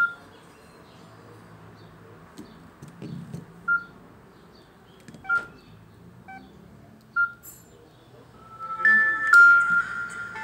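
Samsung touchscreen phones giving short electronic key beeps as buttons are pressed, four single beeps a second or two apart. Near the end a short electronic melody of stepped tones starts up, the phone's start-up tune.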